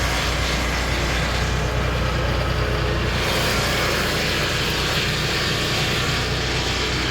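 Portable sawmill's engine running steadily under load, a constant mechanical drone with hiss from the cutting; its tone shifts slightly about three seconds in.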